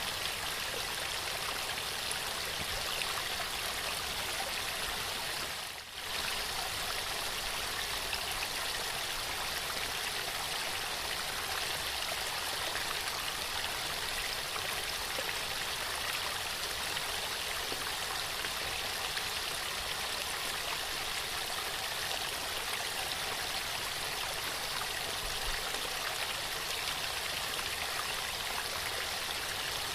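Waterfall: a steady rush of falling water, with a brief dip in level about six seconds in.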